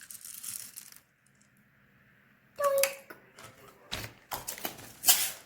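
Crayons clicking and clattering against a plastic tub as they are dumped in. The taps are scattered, with a short quiet gap about a second in and sharper knocks near the end.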